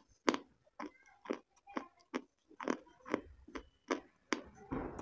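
Wet mouth sounds of close-up eating: chewing with sharp lip smacks and tongue clicks, about three a second.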